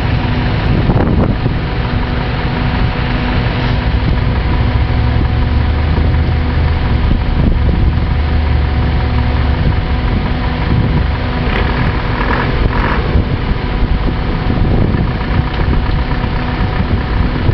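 Off-road vehicle engine running steadily at idle, with a constant low drone.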